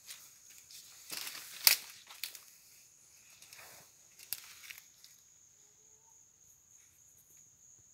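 Footsteps crunching through dry leaf litter and twigs, with one sharp snap about a second and a half in. The steps stop after about five seconds, leaving a steady high insect trill that was running underneath.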